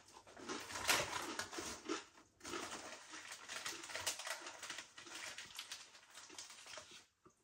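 Close-up crunching and chewing of crisp potato-ring snacks, an irregular run of small crackles with a brief pause about two seconds in, thinning out near the end.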